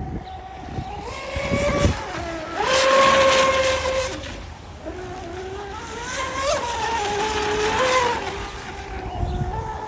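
Whine of an RC electric boat's XTeam 3674 2200KV brushless outboard motor running on 6S, its pitch rising and falling with the throttle. It is highest and loudest about three seconds in, along with the hiss of spray off the hull, then drops and climbs again before falling near the end.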